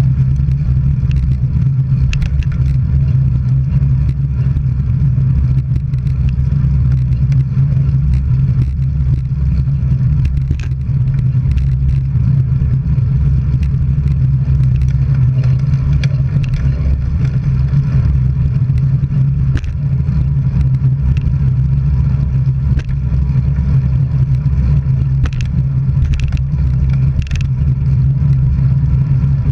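Steady low drone of a moving road vehicle, engine and tyre noise on the road, with a few faint clicks and rattles.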